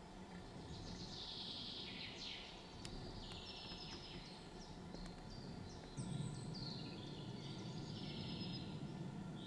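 Songbirds singing: a run of quick high trills and chirps, one phrase after another, over a low steady background rumble.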